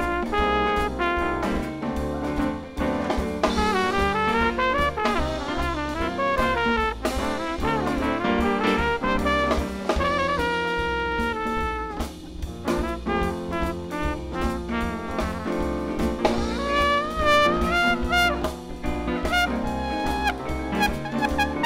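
Live jazz band with a horn section of trumpet, trombone and saxophone playing moving lines together over bass and drums.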